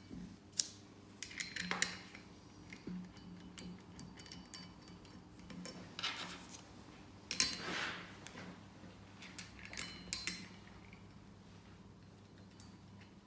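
Steel parts and bolts clinking and knocking as they are handled and fitted, in several short clusters of clinks through the first ten seconds. The parts are the jack block retainer ears and the M10 dome head Allen bolts being fitted to the tube bender's jack block.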